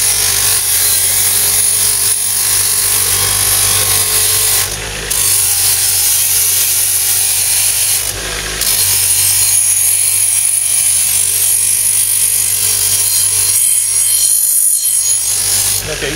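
Craftsman bench grinder running with a steel blade held against its spinning wheel: a steady hiss of metal on the wheel over the motor's hum. The hiss breaks off briefly twice, about five and eight seconds in.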